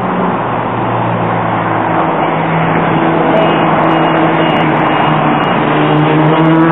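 Croydon Tramlink tram standing close by, its electrical equipment humming in a few steady tones over a loud, rushing background. Near the end more tones join in above the hum.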